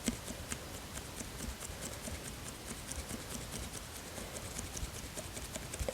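Soft, rapid clicking, several light clicks a second, from fingers handling and tapping a plastic Carex hand-wash pump bottle.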